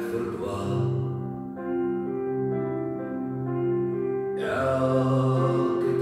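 A recorded song playing over a sound system, with sustained instrumental chords. The singing drops out for about three seconds in the middle, leaving only the slow held chords, and comes back near the end.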